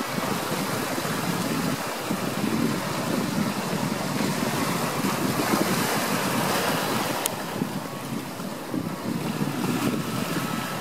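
Ocean waves washing in a steady rushing hiss that swells and eases, mixed with wind.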